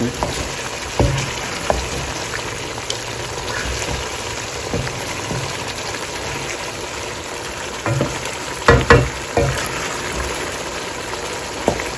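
Chicken jalfrezi curry sizzling in a wok while a wooden spatula stirs it. The spatula scrapes and knocks against the pan a few times, with the loudest knocks about eight to nine seconds in.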